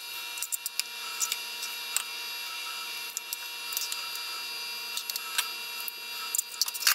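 A metal spoon clinking and scraping against a ceramic bowl and plate as cooked ground beef is spooned into bell pepper halves, in scattered light clicks that cluster near the end. Under it runs a steady hum.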